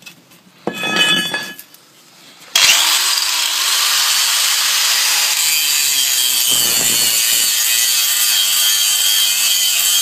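860-watt angle grinder with a grinding disc biting into a rusty steel plate, coming in suddenly about two and a half seconds in, then grinding steadily and loudly with a high whine.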